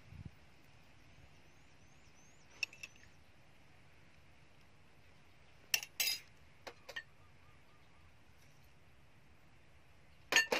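A few sharp clinks and taps of a metal spoon against dishes and bowls as seasoning is spooned into a mixing bowl, with quiet in between; the loudest come about six seconds in and again near the end.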